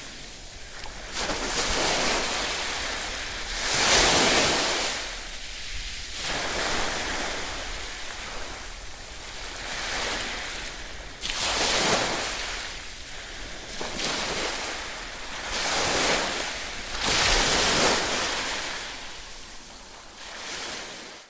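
Ocean waves washing in and drawing back, a rushing surf sound that swells and falls away every few seconds.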